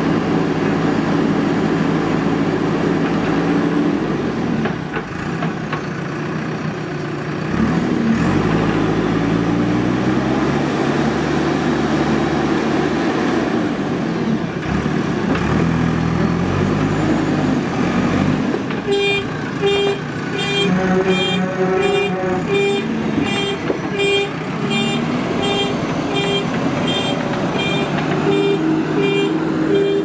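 Diesel engine of a JCB 3DX backhoe loader running under load, its pitch rising and falling as it works. About two-thirds of the way in, a repeated beeping starts, about one and a half beeps a second.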